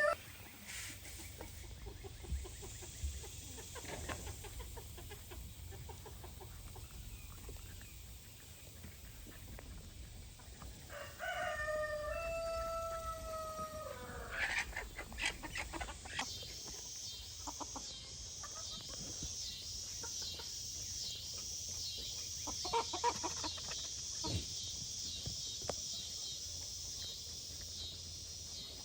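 A rooster crows once, a long call of about three seconds that starts about eleven seconds in. From about sixteen seconds on there is a faint, high pulsing sound, about two pulses a second, with a few scattered clicks.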